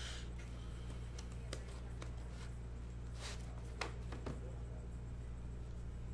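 Trading-card boxes and packs being handled and opened: scattered soft clicks and two short rustles of card and wrapper, over a steady low electrical hum.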